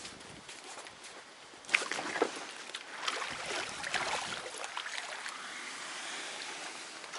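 A boat being launched into the water: a couple of sharp knocks about two seconds in, then water sloshing and rushing noise against the hull.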